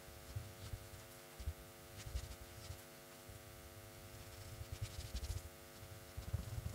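Faint scratchy strokes of a paintbrush laying paint onto a wooden log slice, with dull low bumps of handling and a steady hum underneath.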